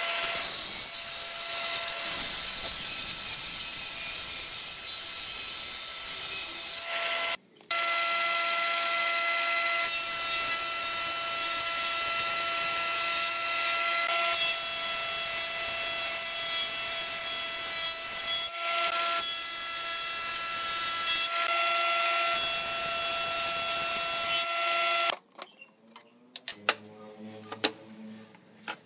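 Stationary woodworking machines running with a steady motor whine. A table saw rips a pine board, then a thickness planer runs, in short clips with abrupt cuts. Near the end the machine noise stops, leaving a few light clicks and knocks of wood and tools handled on a bench.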